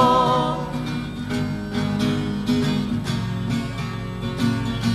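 Acoustic guitars strumming a steady rhythm over low bass notes in an instrumental break between sung lines; a held sung note fades out just after the start.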